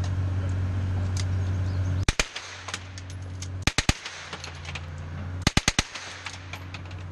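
Fully automatic gun firing three short bursts, the first of two shots and the next two of about four shots each, roughly a second and a half apart. A steady low hum runs underneath, loudest before the first burst.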